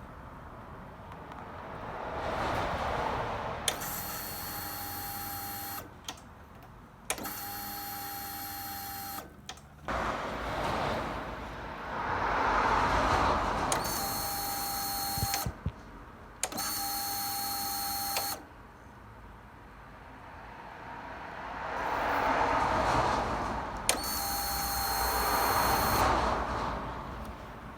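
A small electric motor whines in five bursts of about two seconds each, starting and stopping abruptly, between slow swells of hiss.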